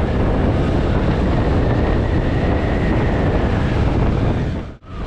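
Wind buffeting the camera microphone with road and engine noise from a Honda Grazia scooter riding at speed, a steady rush. The sound drops out briefly near the end.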